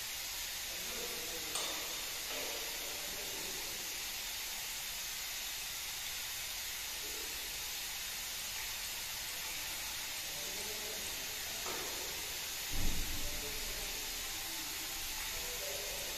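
Steady hiss of workshop room tone, with a few faint knocks as parts of the straightening-bench fixture are handled and one low dull thump about three-quarters of the way in.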